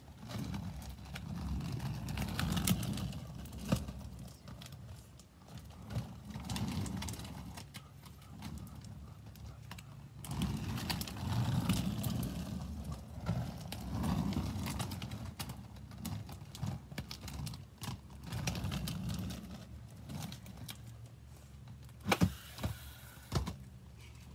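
Quad roller skate wheels rolling over rough exposed-aggregate paving: a low rumble that swells and fades every few seconds, with scattered clicks and a couple of sharper knocks near the end.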